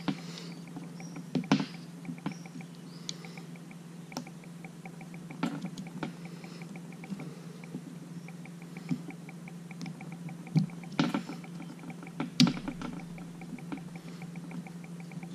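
Handling noise of a small plastic shotgun microphone being pushed into and turned in its shock mount: scattered clicks and knocks, a few sharper ones about a second and a half in and near the end, over a steady low hum.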